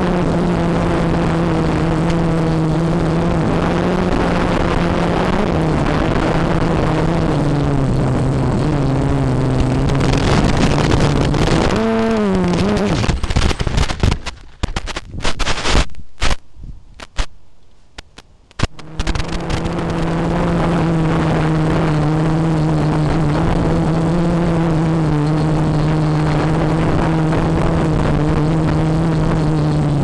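Quadcopter's electric motors and propellers whining steadily, the pitch shifting slightly with throttle. About twelve seconds in the pitch jumps up, then the whine breaks up into sharp clicks and knocks and drops away for several seconds as the quad comes down into a tree's branches. The steady whine returns just under twenty seconds in.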